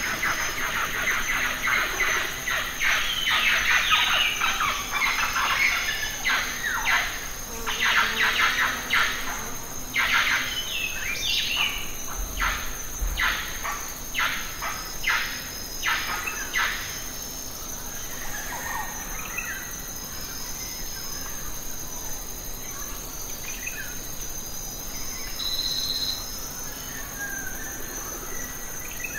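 Birds chirping in quick, dense runs of short calls, busiest in the first half and thinning out later, over a steady high-pitched insect drone.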